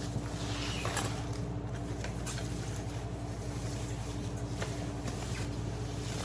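A few faint clicks and rustles of packaging and appliance parts being handled, over a steady low electrical hum.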